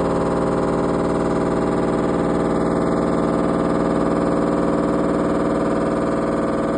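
LG front-loading washing machine in its spin cycle, giving a steady heavy hum with a whine of several tones that holds at one pitch.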